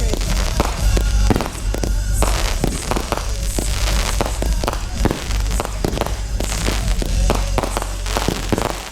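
Fireworks display: a rapid series of bangs and booms, with music playing underneath.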